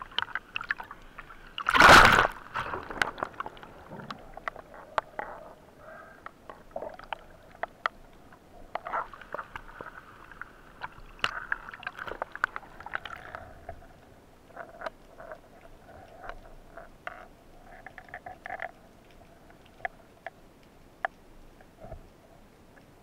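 Rough sea water sloshing and splashing around a camera at the water surface, with one loud splash about two seconds in and a scatter of small clicks and crackles throughout.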